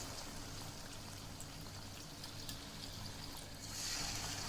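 Batter-coated chicken pieces deep-frying in hot oil: a steady sizzle that grows louder about three and a half seconds in, over a faint low hum.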